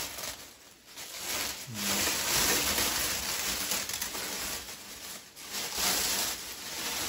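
Thin protective wrapping being pulled off a ceiling light fitting, rustling and crinkling in uneven surges.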